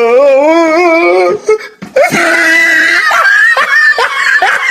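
Comic sound effects: a high, wavering voice-like wail for about a second, then after a brief break a held tone with short downward chirps repeating about twice a second.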